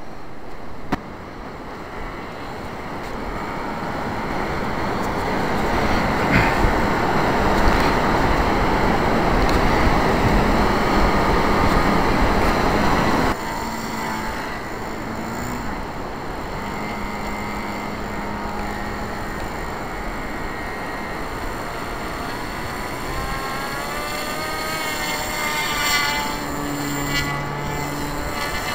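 RC model plane's ASP .52 two-stroke glow engine running, one engine of the twin having died. The sound swells, drops suddenly about thirteen seconds in, and near the end a wavering whine comes in.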